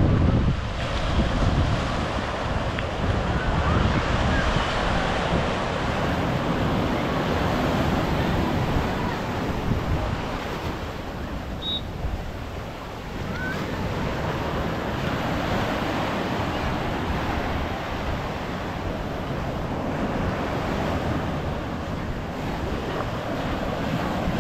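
Ocean surf breaking and washing on a beach, a steady rush, with wind buffeting the microphone.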